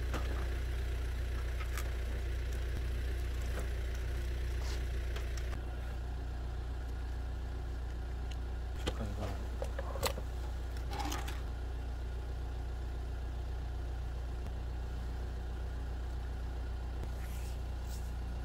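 An engine idling with a steady low hum throughout. A few short knocks and clatters sound between about 9 and 11 seconds in, as a folding aluminium table and a plastic cooler are handled.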